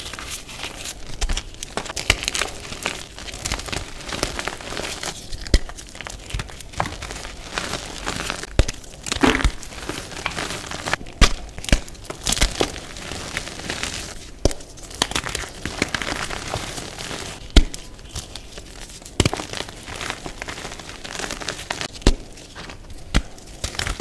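Hands snapping and crumbling thick blocks of reformed gym chalk: continuous dry crunching and crackling, broken by frequent sharp snaps as pieces break, the loudest about three-quarters of the way through.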